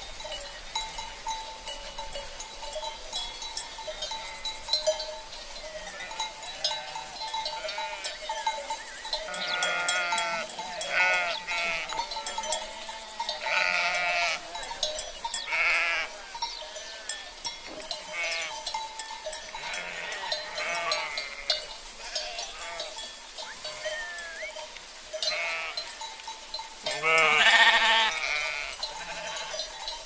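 Goat bells tinkling steadily throughout a moving herd of goats, with goats bleating on and off; the loudest, longest bleat comes near the end.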